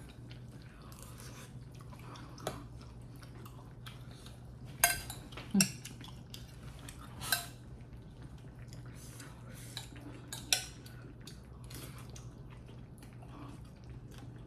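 Cutlery clinking against dishes while someone eats: about five sharp, separate clinks a second or more apart, the loudest about five seconds in, over a steady low hum.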